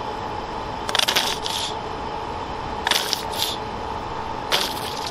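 Three short rustling, scratchy handling noises, each a quick double, about a second and a half apart, over a steady background hum.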